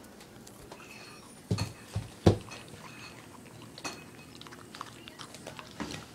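A puppy crunching dry kibble from a plastic bowl: many small sharp crunches and clicks. A few loud knocks come close together about one and a half to two and a half seconds in.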